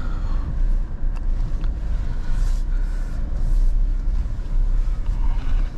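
Maruti Suzuki Jimny heard from inside the cabin while driving over loose rocks: a steady low rumble of the engine and tyres on stones, with a single sharp click about a second in.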